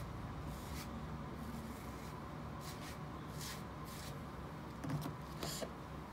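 A hairbrush swept back through slicked-down hair in several short brushing strokes, over a steady low room hum.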